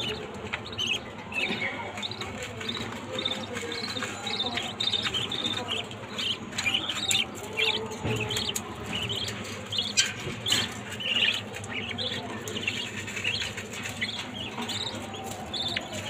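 Budgerigars chirping: a continuous run of short, high chirps, several a second.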